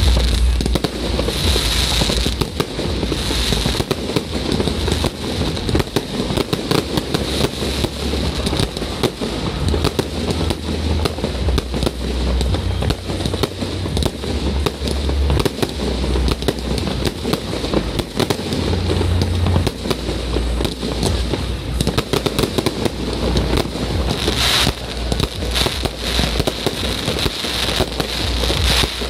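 Aerial fireworks display: a continuous, rapid barrage of shell bursts and crackling with no break.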